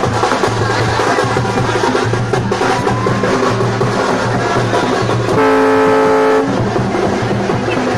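Festival music with drums playing steadily, and a loud horn blowing one steady note for about a second around two-thirds of the way through.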